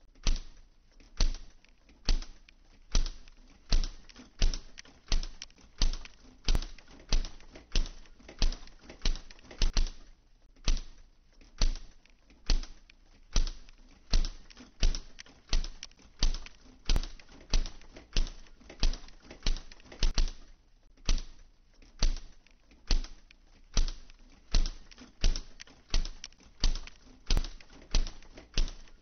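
Sharp, evenly paced clicks or knocks, just under two a second and sometimes in close pairs. The sound is a household kitchen sound laid in to stand for the press's mechanical rhythm.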